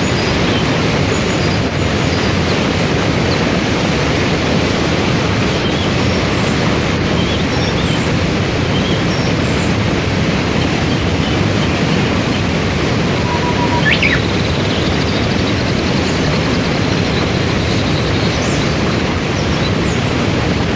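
Waterfall and river cascade: a steady, loud rush of water, with a few faint bird chirps above it and one clearer call about two-thirds of the way through.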